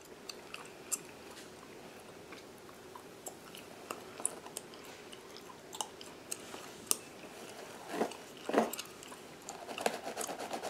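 Close-up gum chewing: scattered small mouth clicks, with a few louder wet smacks about eight seconds in and a cluster near the end. Under it, soft scratching from a fine-tooth lice comb and fingertips working through a mannequin head's synthetic hair.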